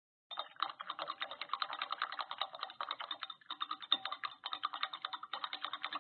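Rapid, dense clicking, many clicks a second, with a few brief breaks.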